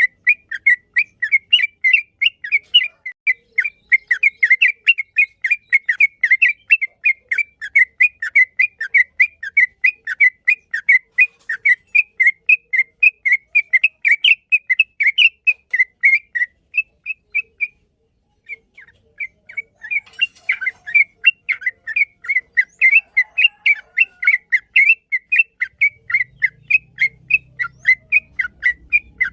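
Yellow-vented bulbul (trucukan) singing a long, fast run of short repeated notes, about four a second, that breaks off briefly just past the middle and then carries on.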